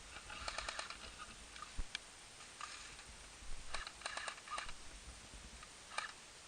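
Airsoft guns firing short automatic bursts: quick runs of sharp clicks in three groups, muffled in a small room.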